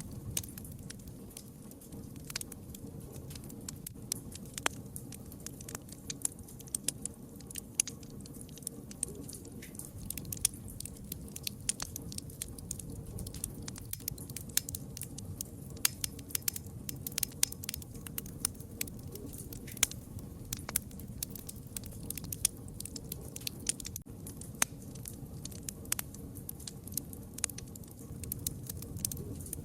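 Campfire burning: frequent sharp, irregular crackles and pops of burning wood over a steady low rumble of the flames.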